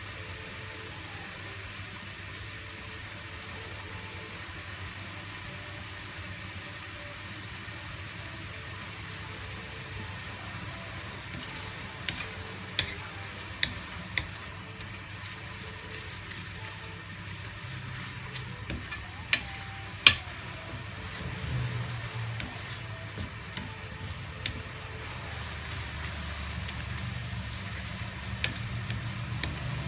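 Glass noodles, bacon and vegetables sizzling in a metal frying pan, stirred with a wooden spoon that knocks and scrapes against the pan several times from about the middle on, with one sharp knock louder than the rest.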